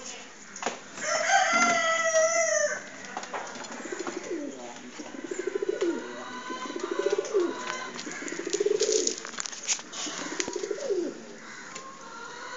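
Domestic fancy pigeons, fantails among them, cooing: about four low, rolling, trilled coos in the second half. A loud drawn-out call rings out about a second in.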